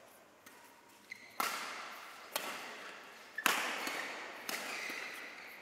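Badminton rackets striking a shuttlecock in a rally: four sharp hits about a second apart, each ringing on in the echo of a large hall.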